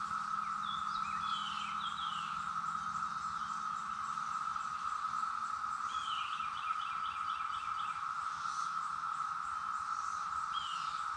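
A dense chorus of cicadas, the insects locally called jar flies, making one steady, unbroken drone from a mass emergence. A bird's quick chirping series sounds over it about a second in and again about six seconds in.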